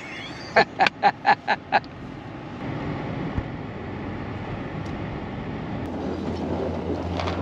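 Steady road and engine rumble inside a pickup truck's cab as it drives, opening with a quick run of about six short sharp sounds; a steady low hum comes in about six seconds in.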